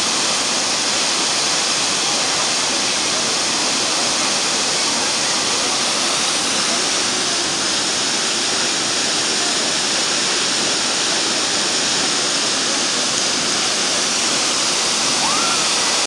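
Tall waterfall plunging down a cliff face: a loud, steady rush of falling water that holds unchanged throughout.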